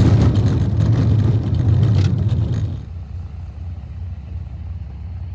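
Land Cruiser driving a snowy dirt track: loud engine and road noise. About three seconds in it drops to a quieter, steady low engine hum.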